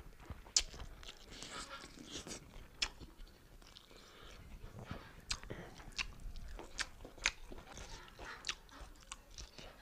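Close-miked chewing of beef curry and rice, with a string of sharp, wet mouth clicks and smacks scattered through.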